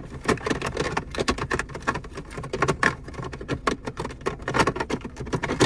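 Hand rummaging around a car's centre console: a quick, irregular run of small clicks, taps and rustles.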